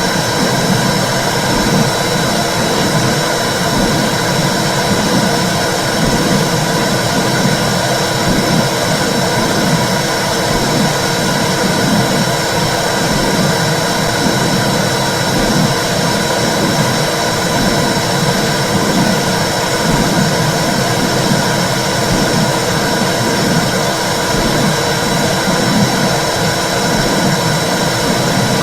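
Womb sound for soothing babies: a loud, steady rushing whoosh with a regular low pulse running through it, like blood flow and heartbeat heard from inside the uterus.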